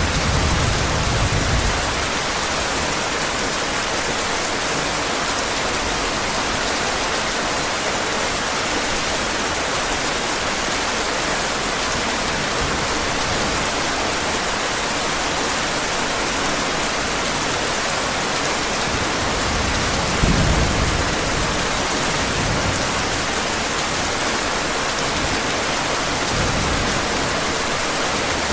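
Steady heavy rain, an even hiss, with low rolls of thunder in the first couple of seconds and again about twenty seconds in, the louder of the two.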